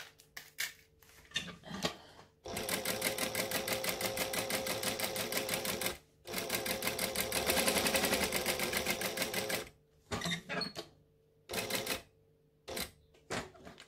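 Industrial sewing machine stitching through layered vinyl: two steady runs of rapid, even stitching about three and a half seconds each with a short pause between, then a few short bursts of a stitch or two near the end. A few light clicks come before the first run.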